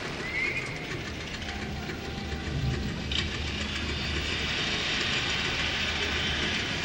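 Steady baseball-stadium crowd noise, an even wash with a low rumble and no distinct voices.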